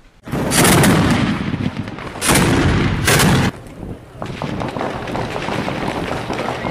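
Heavy gunfire and blasts: a loud burst cuts in suddenly and rings on for almost two seconds, then two more sharp blasts come close together. A steadier din with scattered cracks follows.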